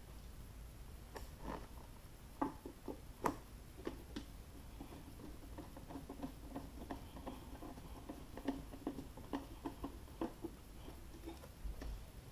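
Hand screwdriver driving screws into the amplifier box cover, giving irregular small clicks and ticks, with a few sharper knocks in the first few seconds.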